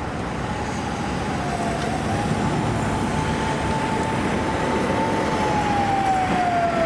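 Police siren wailing in one slow sweep, climbing in pitch, holding and then falling near the end, and growing slightly louder, over a steady rumble of traffic and engine noise.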